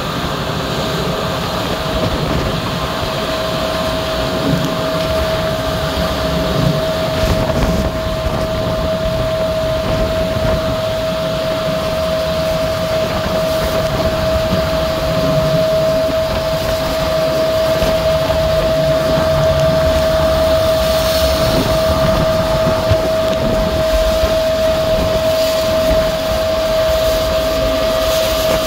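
Pilot boat under way at speed alongside a cruise ship: a steady engine drone with a constant high whine over it, and water rushing and churning between the two hulls. It grows slightly louder in the second half.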